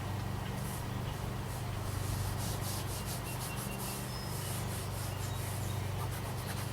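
Rubbing and rustling of synthetic blind fabric being handled and pressed, in a run of short scratchy strokes that is busiest in the middle, over a steady low hum.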